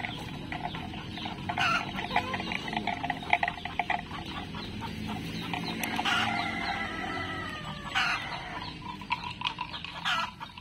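Bali cattle tearing and chewing cut grass, a busy run of crunching and rustling from the feed pile. About six seconds in, a bird call falls in pitch.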